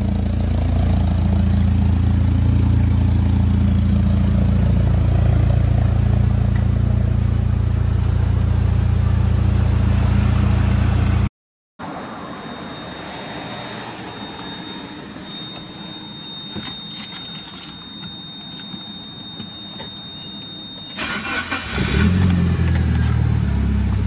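Mitsubishi Lancer Evolution VIII's turbocharged 2.0-litre 4G63 inline-four idling steadily through an aftermarket muffler, a low even exhaust note. After a cut it goes quiet apart from a thin high steady tone and a few clicks. Then, about three seconds before the end, the engine is cranked, starts and settles into idle.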